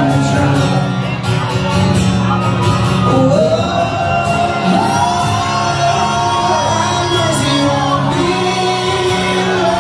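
Live acoustic country band: a woman sings long held notes that slide up and down over strummed acoustic guitars, with the sound of a large hall.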